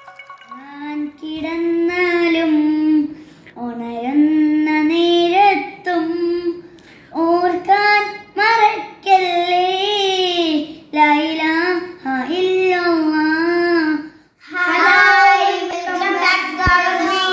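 A child singing a melody unaccompanied, one voice in sung phrases of one to three seconds with short breaks between.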